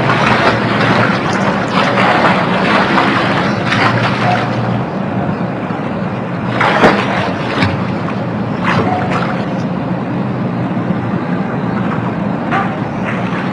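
Water splashing and sloshing in a swimming pool over a steady low hum, with a few sharper splashes about halfway through.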